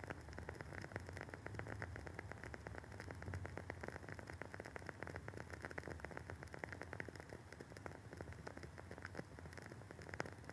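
WoodWick candle's wooden wick burning with a soft, continuous crackle: many small quick pops, several a second, over a low steady hum.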